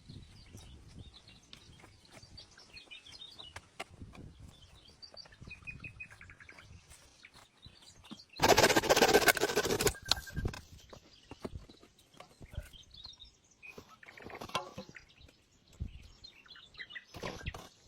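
Small birds chirping now and then over scattered light knocks and clicks, with a loud rough noise lasting about two seconds midway.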